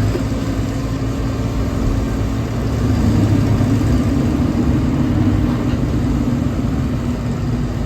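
Heavy machine's engine running steadily, then revving up about two and a half seconds in and holding higher revs before settling back near the end, as when it takes on load.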